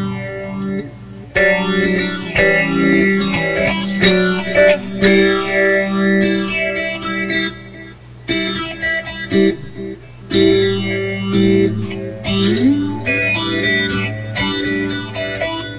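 Electric guitar played through a vacuum-tube PA amplifier: plucked single notes and chords, with a quick sliding rise in pitch about twelve seconds in.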